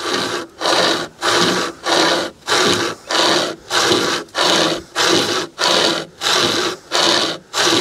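Drifta Stockton pocket chainsaw, a length of chainsaw chain with grab handles at each end, rasping through a dead branch about two inches thick. It is pulled backwards and forwards in even strokes, about two a second.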